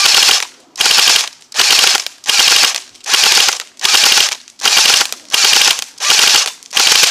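Cybergun Thompson airsoft electric guns (AEGs) firing short full-auto bursts, the gearbox motors rattling out rapid shots. There are about eleven bursts, each under half a second, at roughly one and a half bursts a second.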